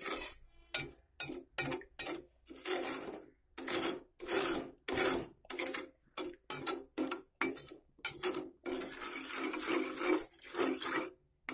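A plastic spatula scraping and stirring across the bottom of a non-stick pan in repeated strokes, some quick and some longer. It is working through sugar in water while the sugar is still undissolved, to keep it from sticking.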